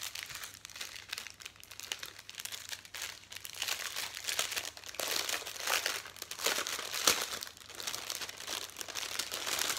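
Clear plastic packaging crinkling and crackling as it is handled and opened, a continuous run of crackles with a louder crackle about seven seconds in.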